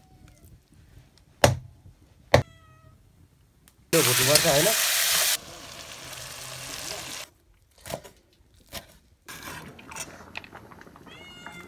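Cooking in a hot pot. A metal spoon clicks twice against the pot, the second click ringing briefly. About four seconds in, a loud sizzle starts suddenly, then drops after a second and a half to a quieter frying hiss that dies away a few seconds later.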